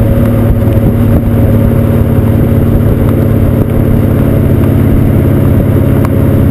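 Exhaust of a 2001 Camaro Z28's 5.7-litre LS1 V8 with 3-inch cutouts, heard right at the tailpipe. It runs loud at a steady engine speed while the car travels at speed, a rough, even drone with no rise or fall in pitch.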